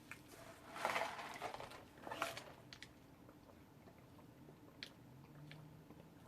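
Eating a rotisserie chicken sub sandwich close to the microphone. Two louder noisy bites come about a second in and just after two seconds, followed by quiet chewing with small mouth clicks.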